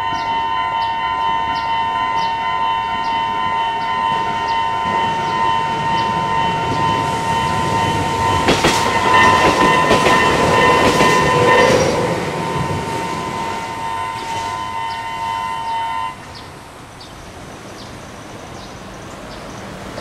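Japanese level-crossing alarm ringing, a high-pitched, eerie-toned bell repeating about one and a half times a second. A Tobu 8000 series electric train runs through the crossing and is loudest from about seven to twelve seconds in, its wheels clacking over rail joints. The alarm cuts off suddenly about sixteen seconds in.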